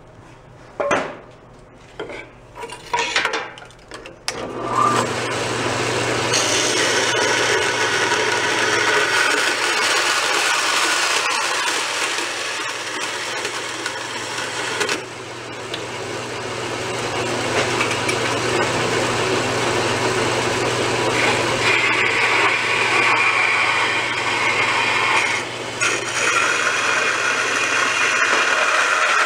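Vertical bandsaw running and cutting through a rusted steel motorcycle exhaust pipe and muffler: a steady rasping hiss over the motor's low hum. A few knocks of handling the parts come in the first four seconds, before the cutting starts.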